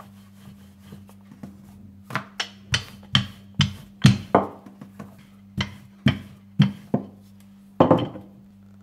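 Rolling pin knocking against the board as a paratha dough ball is rolled out: about a dozen sharp, irregular knocks, each with a short ring, starting about two seconds in and stopping near the end.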